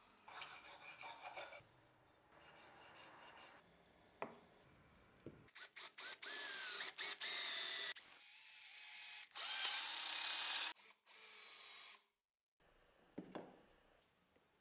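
Cordless drill boring into a birch wood axe handle with a wood bit, run in a few loud spurts with its motor whining, then stopping. Before it there are a few seconds of light rubbing and handling sounds.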